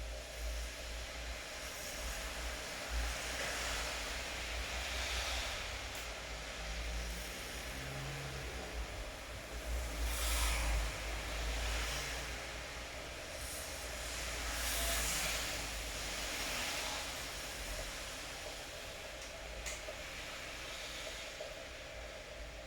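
Steady rain hiss over a low rumble, swelling and easing several times, loudest about ten seconds in.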